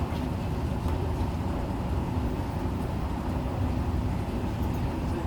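Steady drone of road traffic on a multi-lane road, a continuous low rumble of cars passing with no single vehicle standing out.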